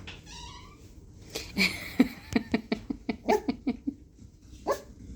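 Cockapoo puppy making a short, high, wavering whine near the start, then a quick run of short sharp sounds, about four a second, with one more near the end.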